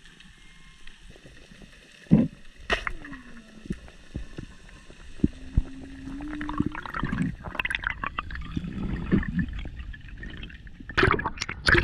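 Underwater sound picked up through a camera housing while freediving: gurgling water with scattered clicks and knocks, a brief tone falling in pitch and another held low tone. Louder, sharper water noises come near the end, as the diver nears the surface.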